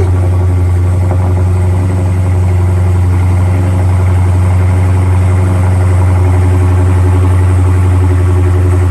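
Dodge Charger's 392 (6.4-litre HEMI) V8 idling steadily with a low, even hum, warm after running for a long time.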